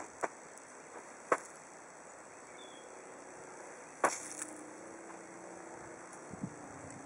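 A handful of sharp clicks over a faint, steady outdoor hiss, the loudest about four seconds in. A faint low hum comes in during the second half.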